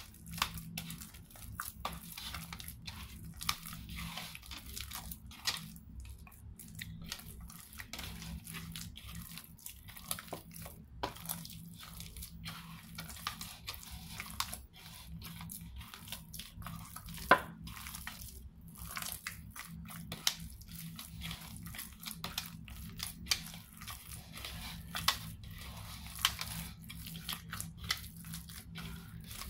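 Hands kneading soft bread dough in a bowl: irregular sticky squishing and tearing, with scattered sharp clicks, the loudest about halfway through.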